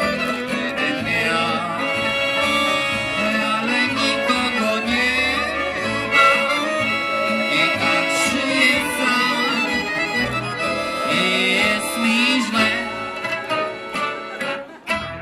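Live band music: banjo, double bass and guitars playing an instrumental passage of an old Warsaw street-ballad-style song. The playing breaks off near the end.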